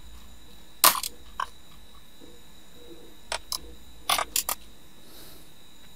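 A few isolated computer keyboard keystrokes: a sharp click about a second in, a pair a little after three seconds and a quick run of three around four seconds, over a faint steady hum.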